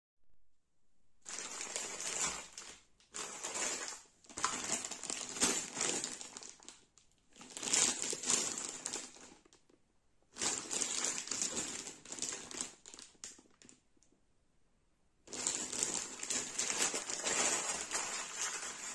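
Clear plastic packaging bag crinkling as it is handled, in several bursts with short pauses between them.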